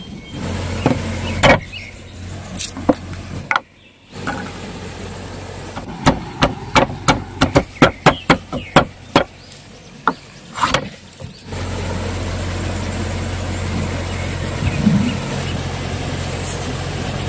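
Wooden pestle pounding in a wooden mortar: a quick run of about a dozen knocks, roughly three a second, in the middle. Before and after it a steady low hum runs, with a few scattered knocks.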